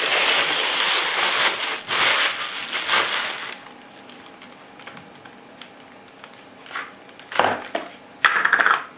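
Clear plastic bag crinkling loudly as binoculars are pulled out of it, for about the first three and a half seconds. Then quiet, with a few short knocks and rustles of the binoculars and rubber lens caps being handled near the end.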